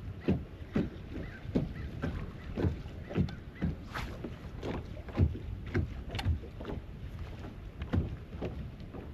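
Small waves slapping against a bass boat's hull in irregular low knocks, about two a second, with wind on the microphone.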